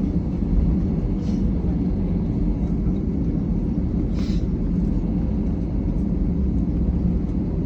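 Steady low rumble of a Delta Airbus A321-211's CFM56 jet engines and airflow heard inside the passenger cabin as the plane waits in sequence for takeoff. Two faint brief hisses come about one and four seconds in.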